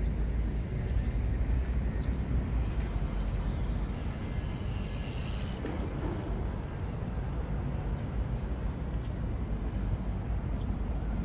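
Steady low outdoor rumble. A brief high hiss lasts about a second and a half, about four seconds in.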